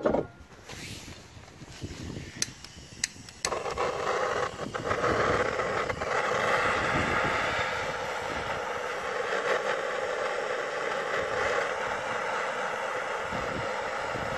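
A handheld gas torch on a screw-on canister: two sharp clicks, then it lights about three and a half seconds in and burns with a steady hiss.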